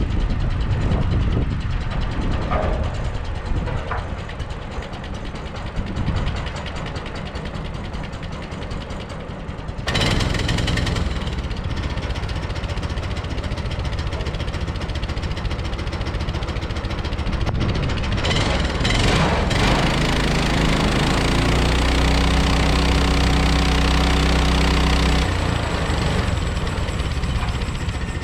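HM130 portable band sawmill running, its engine going steadily; the sound steps up louder and fuller about ten seconds in, and a deep steady hum sits under it from about twenty to twenty-five seconds, then drops away.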